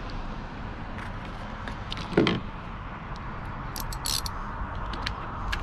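A single knock about two seconds in, then short runs of ratchet-wrench clicking near the end as the spark plugs go back into an outboard motor.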